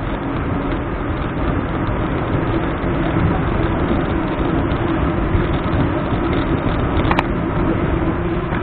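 Wind rumble and road noise on a bicycle-mounted camera riding along a paved street, steady throughout, with a faint steady hum underneath and a sharp click about seven seconds in.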